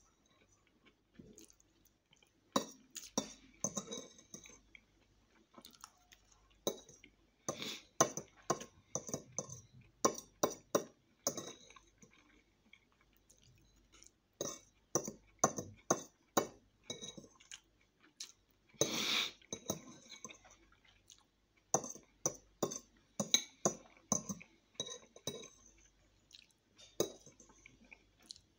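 A metal fork clinking and scraping on a plate in many short sharp strikes, mixed with close-up chewing and slurping of spaghetti. One longer noisy sound comes about two-thirds of the way through.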